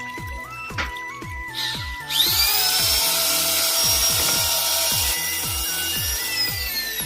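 A power tool's motor spins up about two seconds in and runs for about four seconds with a high whine and a hiss, then winds down near the end. Background music with a steady beat plays throughout.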